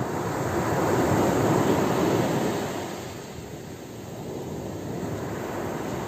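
Ocean surf: a wave breaks and washes up the beach, swelling to its loudest about a second and a half in and easing off by the middle, followed by a lower, steady wash of the next waves.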